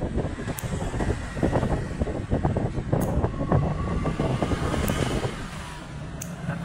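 Quick, irregular scraping and clicking of a metal pedicure tool working against the edge of a toenail, over a steady low rumble. The scraping thins out about five seconds in.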